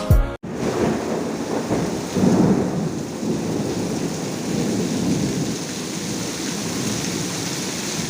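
Heavy rain pouring steadily with a low rumble underneath, swelling a little about two seconds in; it starts and stops abruptly at cuts.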